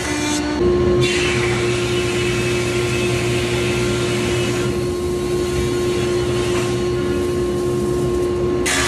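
Thickness planer cutting a rough maple board down to thickness, heard together with the cyclone dust collector pulling its chips: a steady machine hum with a rushing hiss of chips through the ducting. The hiss swells and fades twice.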